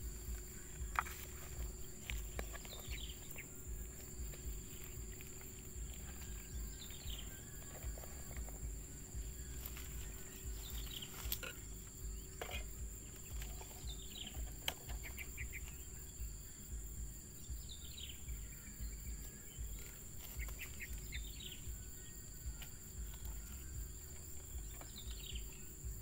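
Field ambience: a short falling chirp repeats every three to four seconds over a steady high insect drone and a low wind rumble. A few sharp knocks come through, one of them near the middle.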